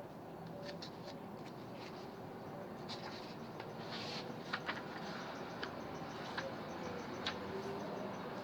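Quiet room tone with a steady faint hiss, broken by scattered small clicks and a few brief light rustles.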